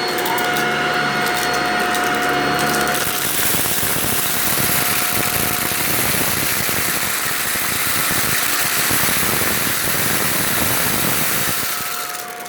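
Bagless vacuum cleaner running with a steady whine; about three seconds in, a loud crackling hiss takes over as it sucks up dry macaroni noodles, easing off near the end.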